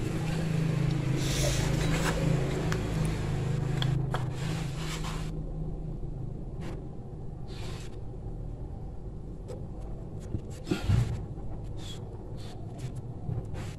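A motor vehicle engine hums steadily, then fades out about halfway through. After that come scattered light metallic clicks and one louder knock near the end, from hands and tools working on an opened motorcycle engine case.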